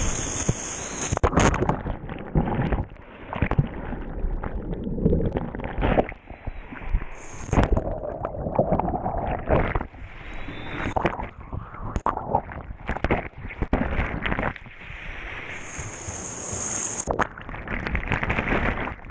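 Whitewater rushing and splashing around a kayak, in uneven surges with gurgling water and buffeting on the microphone.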